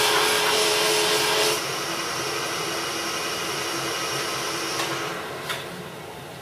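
Burr King Model 760 belt grinder running with a buffing wheel fitted, a steady motor whir. About a second and a half in the sound drops in level and then fades away steadily, with a couple of faint ticks near the end.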